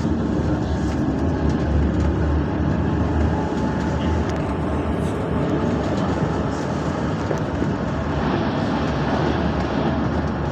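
Light-rail tram running along the line, heard from inside the passenger car: a steady low rumble of the moving car.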